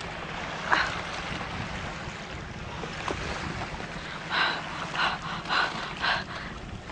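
Wind on the microphone and water noise around a canoe, with a sharp knock about a second in and four short whooshing sounds, about half a second apart, near the end.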